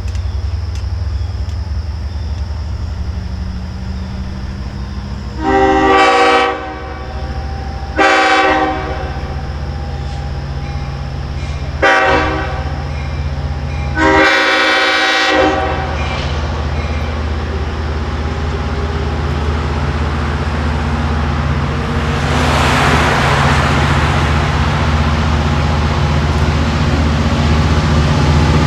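LIRR DM30AC diesel locomotive sounding its multi-note horn in the grade-crossing pattern: long, long, short, long. A low diesel engine drone runs underneath. Then, from about two-thirds of the way in, the rising rumble of the train running close by.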